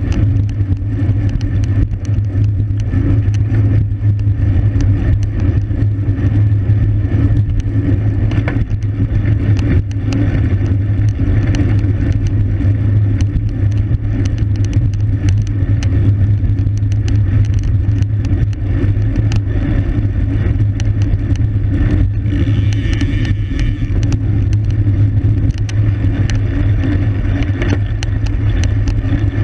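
Steady wind rush and road rumble on the camera microphone of a racing bicycle ridden at speed, with scattered small clicks.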